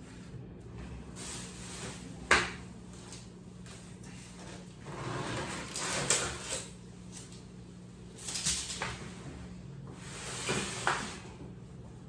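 Plastic knocks, clatter and rustling as a new Midea twin-tub washing machine is unpacked and its lid and plastic parts are handled. One sharp knock about two seconds in is the loudest, with rustling and further knocks later.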